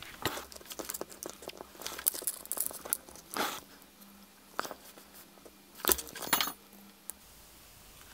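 Handling noise at a soldering bench: scattered small clicks and taps as a carbon-fibre quadcopter frame and its motor wires are held and shifted while a wire is soldered to an ESC pad, with a few louder knocks about two, three and a half and six seconds in.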